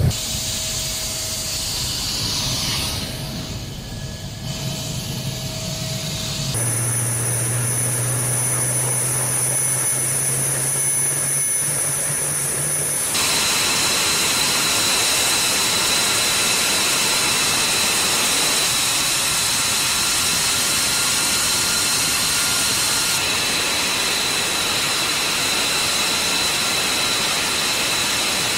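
Fighter jet engines running on the ground: a steady hissing roar with a high, thin whine. The sound shifts suddenly about six and thirteen seconds in.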